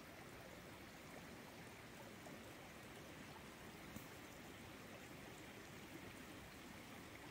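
Faint, steady trickle of a shallow forest stream, with a single soft click about four seconds in.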